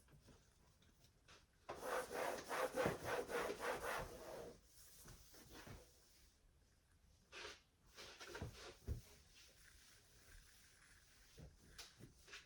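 Rapid back-and-forth scraping, about four strokes a second for about three seconds, followed by a few scattered light knocks and short scrapes.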